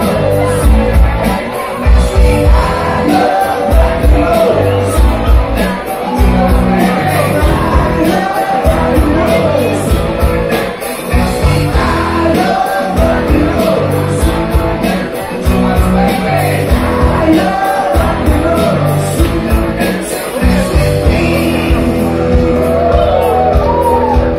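Live cover band playing a song: a lead singer over electric guitar, keyboard, bass and drums with a steady beat.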